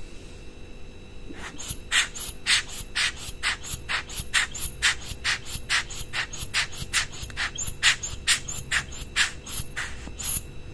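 Hand-squeezed rubber air blower puffing air into a mirrorless camera's open lens mount to blow dust off the image sensor: a run of short hissing puffs, about two a second, starting about a second and a half in.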